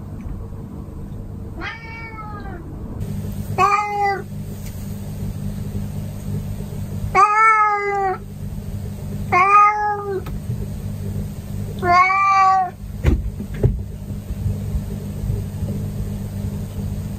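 Orange tabby cat meowing five times, each call drawn out and arching up then down in pitch, over a steady low hum: the cat's morning calls to wake its owner.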